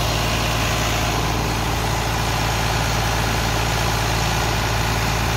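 John Deere tractor's turbocharged diesel engine idling steadily. It is running on diesel fuel system cleaner fed from a fuel injector flush tool to clean the injectors.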